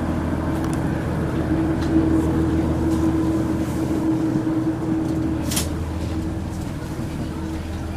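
KiHa 110-series diesel railcar standing with its engine idling, a steady low hum inside the carriage. One short click about five and a half seconds in.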